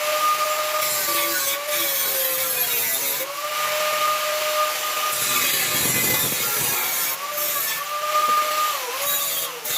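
Hand-held electric power tool running under load, its motor whine sagging in pitch and recovering several times as it bites into the work, over a steady grinding hiss.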